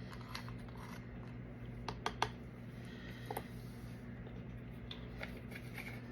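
A few light clicks and taps from small plastic craft items being handled, a cluster about two seconds in and another a little later, over a steady low hum.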